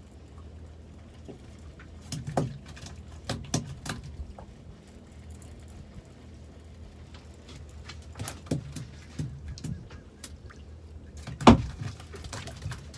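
Scattered knocks and taps of rod, tackle and a small black bream being brought aboard a small fishing boat, over a low steady hum. The sharpest knock comes about eleven and a half seconds in.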